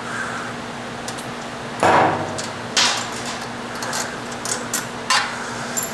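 Metal tools clanking and clicking against the bolt and brake lever hardware as the brake lever pivot screw is backed out, with the loudest clank about two seconds in. A shop fan hums steadily underneath.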